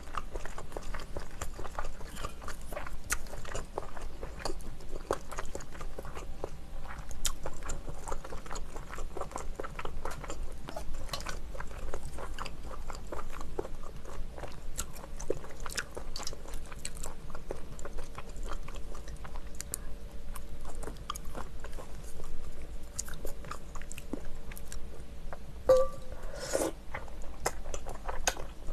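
Close-miked mouth sounds of eating: chewing and smacking on Chinese glass noodles and seafood from a bowl of spicy jjamppong ramyeon, many small wet clicks, with a louder slurp of noodles near the end.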